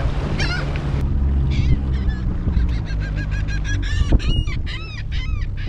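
A flock of birds calling over and over, rise-and-fall calls coming thicker from about a second and a half in, roughly three or four a second, over the steady low drone of the jon boat's outboard motor.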